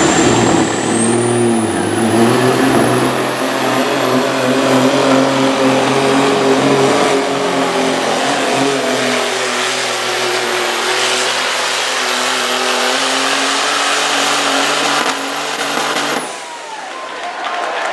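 A hot-class semi truck's diesel engine at full throttle, dragging a weight-transfer pulling sled, with a high turbo whine that climbs over the first two seconds and then holds. About sixteen seconds in, the whine falls away and the engine note drops as the pull ends.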